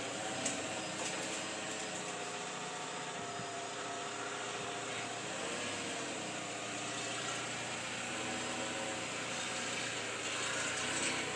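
Chevrolet Sonic's engine running steadily, a hum with tones that waver slightly in pitch and a few light clicks.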